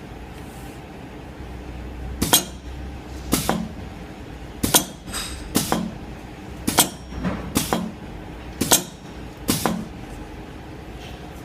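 Wet-wipe lid gluing machine at work: about eight sharp clacks, roughly one a second, as lids are set on the gluing unit and handled, over a steady low machine hum.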